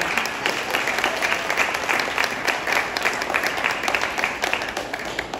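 Audience applauding: a dense, steady clatter of many hands clapping, easing slightly near the end.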